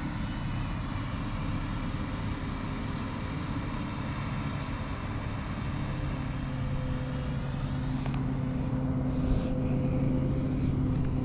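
Krone self-propelled forage harvester running steadily while chopping maize for silage. Its hum grows clearer and somewhat louder in the second half.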